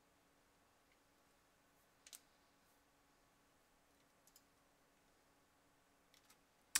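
Near silence: room tone with a faint steady hum and a few faint short clicks, the last and sharpest at the very end.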